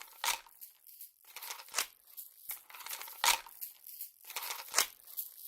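Rustling and scraping, with a louder scrape about every second and a half.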